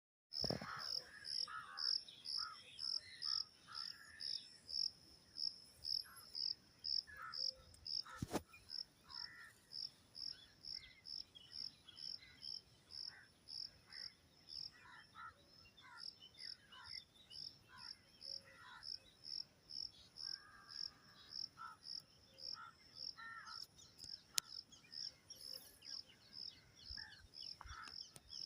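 Insect chirping in a steady, even rhythm, about two high chirps a second, with scattered short bird calls and a couple of sharp clicks.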